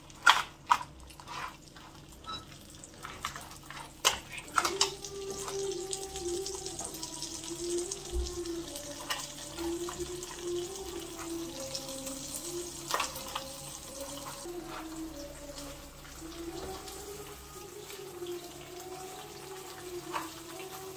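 Crab curry with added water bubbling and sizzling in a non-stick pan, with a few clinks of a spatula and tongs against the pan in the first few seconds. A faint wavering hum runs underneath.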